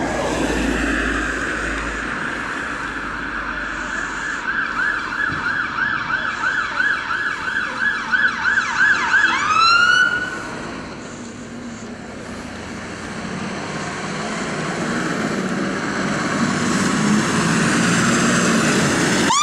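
Fire engine siren: a rising wail held steady, then switching to a fast yelp of about four sweeps a second, which cuts off about ten seconds in. The fire engine's engine then grows louder as it draws near, and the siren starts up again with a rising wail at the very end.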